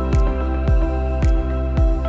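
Background music: sustained chords over a steady low drum beat, a little under two beats a second.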